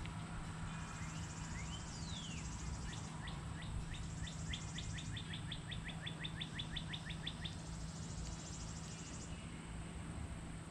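A songbird singing: one down-slurred note about two seconds in, then a run of short chirps that speeds up over about five seconds. Insects buzz in stretches of high, rapid pulsing behind it, over a low steady hum.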